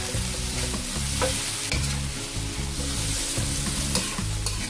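Eggplant strips, red chili and garlic sizzling in a hot wok while a metal spatula stirs and tosses them, with a few short scrapes of the spatula against the pan.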